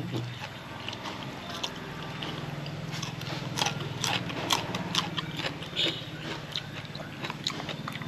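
Close-up mouth sounds of a person biting and chewing crisp raw vegetables, a leafy stem and a yardlong bean, with many sharp crunches, thickest around the middle, over a low steady hum.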